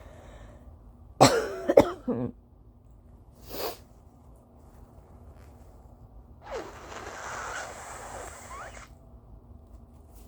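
A woman's dry allergy cough: a quick run of three harsh coughs about a second in, then a short sharp breath. Near the end comes a longer breathy blowing sound lasting about two seconds.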